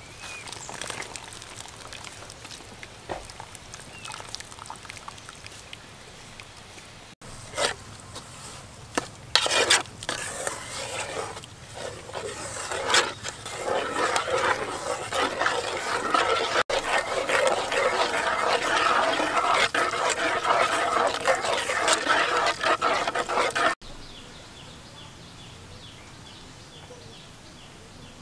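Cooking utensils knocking and scraping against metal pots, then a wooden spatula stirring and scraping a thick sauce in an aluminium pot for several seconds, the loudest part. It drops suddenly to a quieter background near the end.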